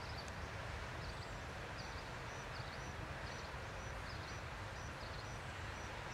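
Outdoor forest ambience: a steady low rumble under a faint high chirp that repeats about once every three-quarters of a second.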